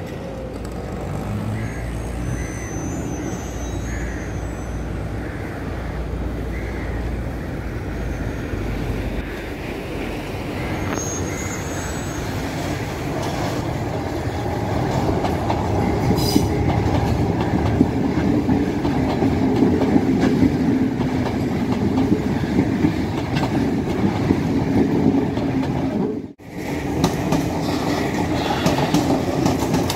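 A Sri Lankan Railways diesel power set (multiple unit) approaching and passing, its engine running and its wheels clattering over the rail joints. It grows louder from about halfway, cuts out for a moment near the end, then the carriages roll past.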